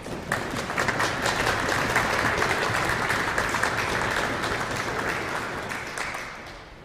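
Audience applauding: a dense patter of many hands clapping that swells over about the first second, holds steady, then dies away near the end.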